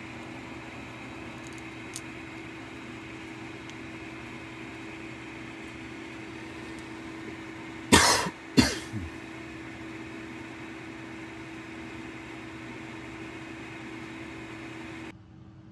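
Two loud coughs, about half a second apart, over a steady fan hum with a constant low tone. The hum cuts off suddenly near the end.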